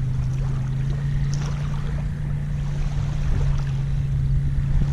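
An engine droning steadily at one even pitch over low wind rumble.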